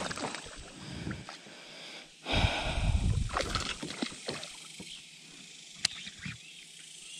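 A hooked bass being landed into a kayak: a burst of splashing and rustling about two seconds in, then quieter handling noise with a sharp click near the end.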